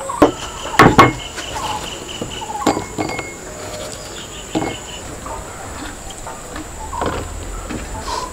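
About half a dozen knocks and clinks of food and utensils against ceramic bowls on a wooden table, the loudest pair about a second in, over steady chirring of insects.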